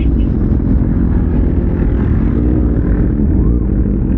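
Kawasaki ZX-6R's inline-four engine running steadily while under way, mixed with a heavy, even rush of wind noise on the microphone.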